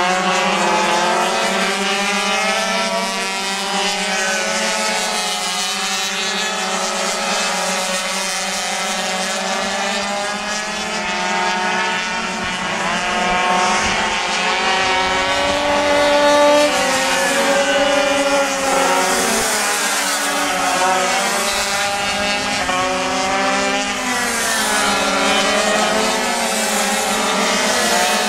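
Several racing pocket bikes' small two-stroke engines revving hard, the overlapping engine notes rising and falling in pitch as the bikes accelerate and ease off through the corners.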